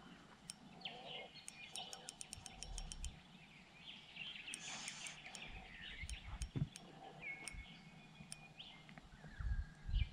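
Birds calling with short whistles and chirps, one held note near the end, over faint outdoor ambience. Scattered fast high ticks and a few low thumps, the loudest just before the end.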